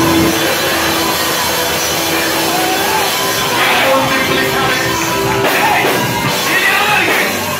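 Loud live worship music: long held chords with voices singing and wavering over them.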